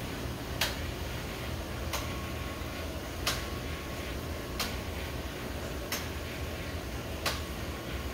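A sharp mechanical click repeating at an even pace, six times, about one every 1.3 seconds, over a steady low hum.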